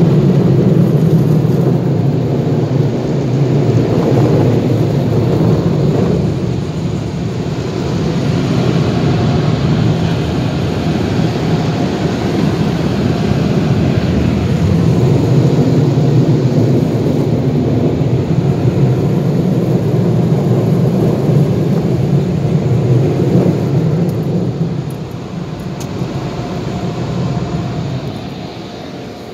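Car wash dryer blowers blowing air over the car, heard from inside the cabin: a loud, steady rush of air with a deep hum. It fades over the last few seconds as the car pulls clear of the blowers.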